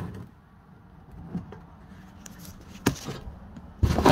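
A black plastic oil drain pan being handled and set down on a plastic milk crate: faint rubbing and a short knock about three seconds in, then a loud plastic clunk and scrape near the end as the pan lands on the crate.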